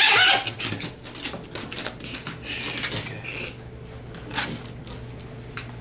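A toy poodle gives a brief, loud yelp at the very start. It is followed by irregular short scratchy strokes and clicks as a slicker brush is raked through the dog's dried, matted coat.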